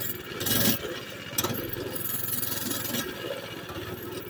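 Mini bike's small engine running under load as it climbs out of an overgrown spot, with weeds and brush rubbing and scraping against the bike. It gets louder for a moment about half a second in.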